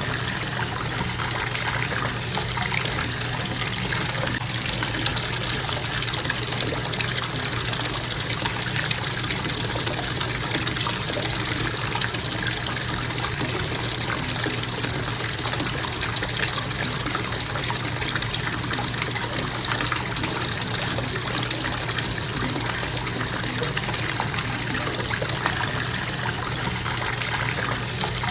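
Bathtub faucet running steadily, water splashing into the tub in a constant, unchanging stream.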